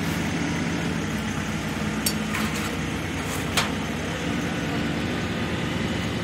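Diesel engine of a JCB Loadall telehandler running steadily, with two short sharp knocks about two and three and a half seconds in.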